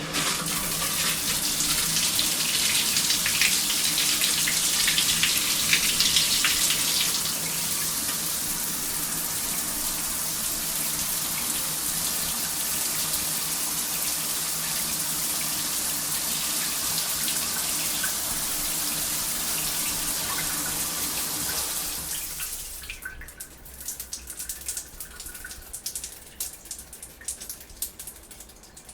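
Shower turned on and spraying steadily, louder for the first several seconds and then settling. About three quarters of the way through the tap is turned off and the spray stops, leaving scattered dripping.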